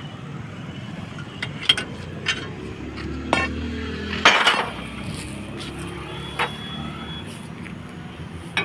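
Metal tools knocking and clinking against a bus wheel hub and its studs: a handful of sharp separate clinks, with a longer metallic clatter about four seconds in, over a steady low rumble.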